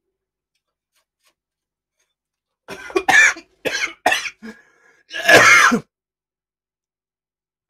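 A man coughing hard from the heat of chilli ramen: a quick run of about four coughs starting about three seconds in, then one longer, harsher cough.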